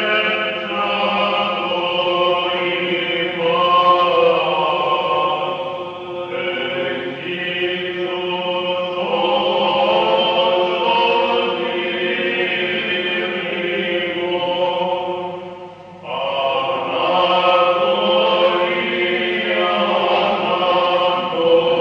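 Choir of seminary students singing Orthodox church chant, from an old recording. The chant breaks off briefly about three-quarters of the way in, then resumes.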